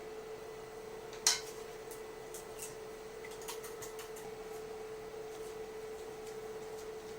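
A steady low hum with a sharp clink about a second in and a few light ticks after it, as of a kitchen utensil knocking against a cooking pot.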